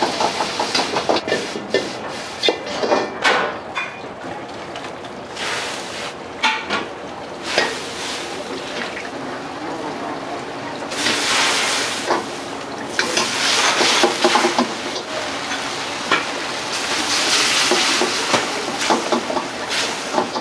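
Busy wok station: a steel ladle knocks and scrapes in a wok over a gas wok burner, in a run of quick clanks. In the second half come three long bursts of loud hiss from the pan.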